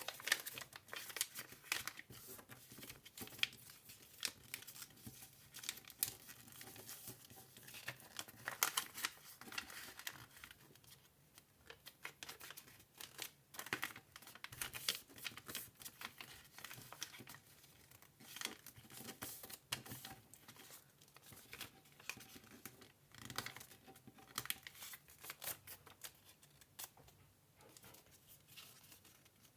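A sheet of A4 paper being folded and creased by hand into a paper airplane: irregular crinkling and rustling, with many short sharp crackles as the folds are pressed.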